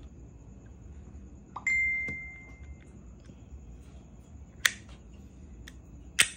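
A Shimano Ocea Jigger F Custom 2001NRHG jigging reel being worked by hand, giving light ticks and two sharp clicks near the end. A single bright ding rings for about a second, about one and a half seconds in, and is the loudest sound.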